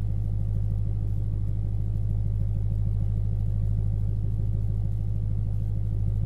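BMW E90 M3's V8 idling through a Meisterschaft GT exhaust after a cold start: a low, even drone that holds steady throughout.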